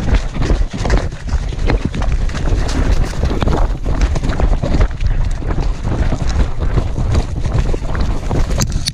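A dog running hard through grass and brush, recorded from a camera on its harness: rapid, irregular footfalls and scraping of brush against the harness, with wind buffeting the microphone.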